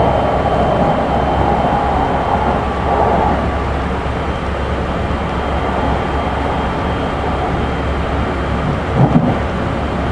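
Interior running sound of a Keikyu 1500 series electric train's motor car, a Mitsubishi GTO-VVVF set, at speed: continuous wheel-and-rail rumble. A band of noise fades out about three seconds in, and there is a brief thump near the end.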